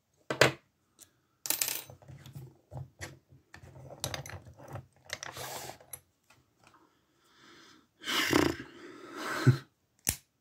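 Lock pick working the spool pins of a Master Lock No. 140 brass padlock: scattered light metallic clicks and scrapes, then louder clacks about eight seconds in as the lock is picked open.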